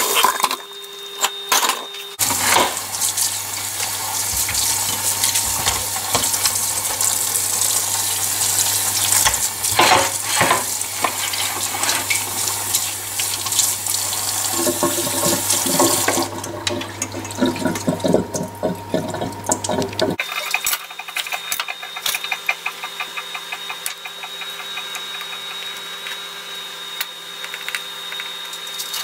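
Cold tap water running onto boiled fennel bulbs in a metal steamer basket in a sink, a steady splashing that cuts off about two-thirds of the way through. Afterwards, quieter light clicks and handling of the softened fennel on a plastic cutting board.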